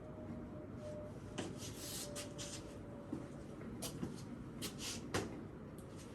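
Scattered light clicks and rubbing or shuffling noises in a small room, with a faint steady tone that fades out about two and a half seconds in.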